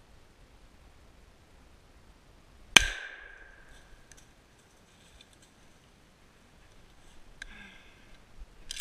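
A single 12-gauge shotgun shot about three seconds in, sharp and loud, with a short echo trailing off. A few light clicks and rustles follow near the end.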